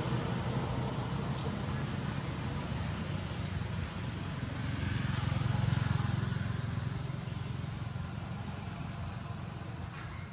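Steady low rumble with a hiss over it, swelling a little about halfway through and then easing off.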